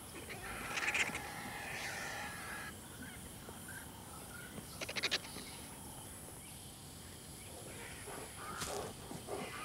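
Vulture calls: harsh, bleating cries in the first few seconds, then a short rattling burst about five seconds in.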